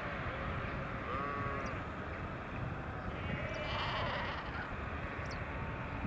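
Sheep bleating several times: calls around a second in and a louder one between three and four seconds in, over a steady low rumble.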